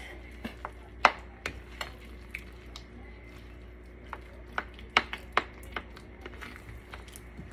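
A spatula stirring a thick, creamy dip mixture in a metal skillet, with irregular clicks and knocks as it strikes the pan. A steady low hum sits underneath.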